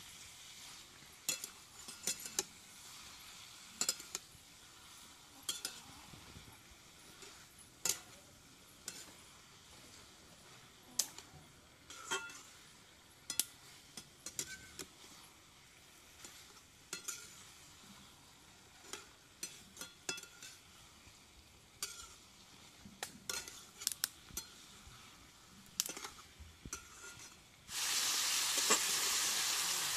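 Chicken pieces frying in a metal kadai with a low sizzle, while a metal spatula stirs them with irregular scrapes and clinks against the pan. Near the end the sizzling suddenly becomes much louder and steady.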